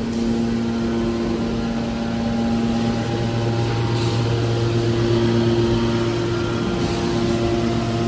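Hydraulic metal baler's power unit running: electric motor and hydraulic pump giving a steady hum made of several held tones, which shift in balance about three seconds in.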